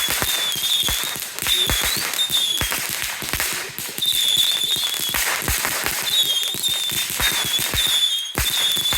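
Consumer fireworks going off in rapid, uneven succession: a dense run of cracks and pops, with short, wavering high whistles rising over them again and again.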